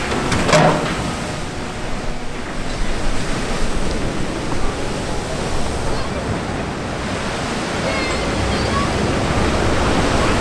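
Rushing, crashing water from a ship's side launch: the hull has dropped sideways into the canal, and the displaced wave surges across the basin and washes over the quayside. The noise is dense and steady, with a brief louder splash about half a second in.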